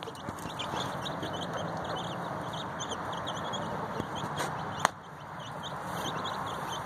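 Chicks peeping in quick, repeated high cheeps over steady background noise, with one sharp click about five seconds in.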